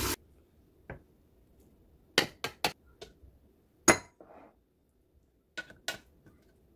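A metal spoon clinking and tapping against a glass bowl and a glass jar while scooping out gochujang. There are about eight sharp separate clinks, the loudest about four seconds in.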